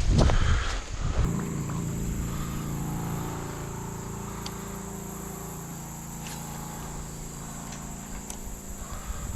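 About a second of loud rustling and wind noise, then a steady high insect trill with a low steady hum underneath and a few faint clicks.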